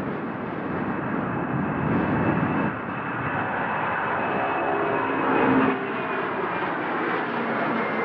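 Boeing 767-300ER jet engines at takeoff thrust as the airliner lifts off and climbs: a steady roar with a thin, high fan whine over it, swelling louder about five seconds in.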